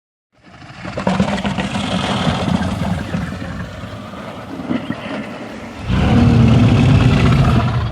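Dragon sound effect: a rough, low, growling creature vocalisation that starts about half a second in, eases in the middle, then swells louder again near the end before cutting off.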